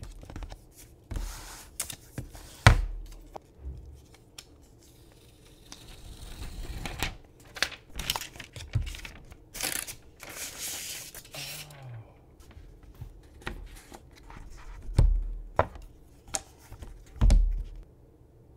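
Unboxing handling noise: an iPad Air's cardboard box being opened and its paper wrap rustled and peeled away, with a burst of tearing and crinkling about ten seconds in. Clicks and knocks run throughout, and a few sharp thumps come as the box and tablet are set down on the desk, one near the start and two near the end.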